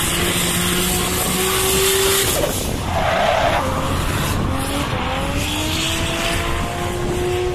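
Drift car engine revving hard at high rpm as the car slides sideways, its pitch climbing and dropping with the throttle. The tyres screech as they spin and smoke on the asphalt.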